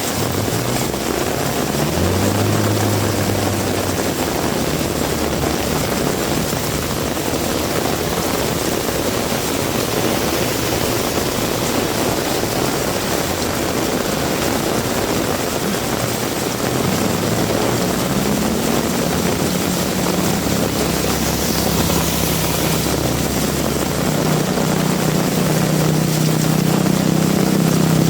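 Heavy rain pouring steadily, with motor vehicle engines passing: one near the start, and another coming in about two-thirds of the way through and getting louder toward the end.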